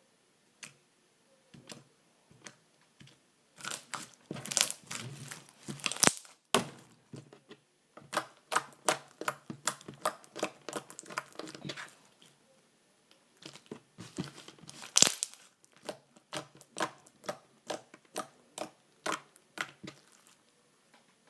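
Slime being squeezed and stretched by hand, crackling and popping with sharp clicks. The clicks come in dense runs, then as single pops about twice a second near the end.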